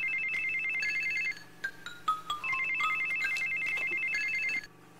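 Smartphone ringtone for an incoming call: a fast, trilling electronic melody of high tones, playing in two runs with a short break about a second and a half in, and stopping about four and a half seconds in.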